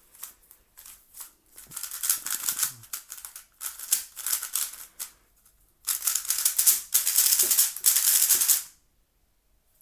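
MoYu WeiLong WR M magnetic 3x3 speedcube being turned quickly by hand: rapid plastic clicking and clacking, a lighter run first, then after a short pause a louder, denser run that stops about a second before the end. The cube is still unlubricated (dry).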